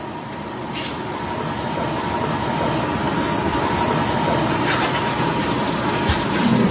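Beef sizzling in a hot pan: a steady hiss that grows gradually louder.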